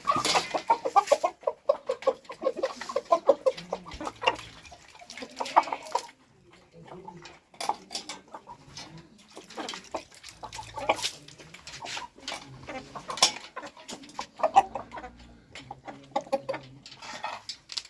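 A flock of chickens clucking continually, with many short overlapping calls, busiest in the first few seconds and again in the second half.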